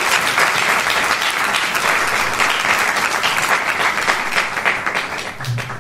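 Audience applauding, with many hands clapping at once, fading near the end.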